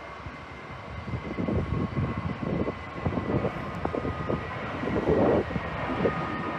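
Jet aircraft engine running with a steady high whine, under gusts of wind buffeting the microphone that surge strongest about five seconds in.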